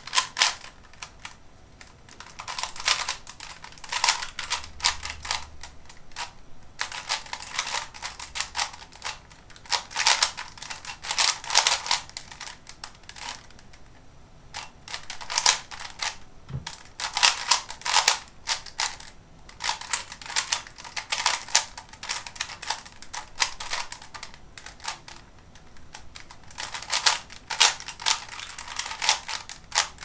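Type C DIY 3x3 speedcube being turned fast by hand: rapid clicking and clacking of plastic layers turning, in quick flurries separated by short pauses.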